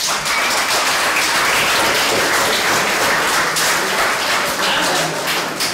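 Audience applauding: many hands clapping steadily together, easing off slightly near the end.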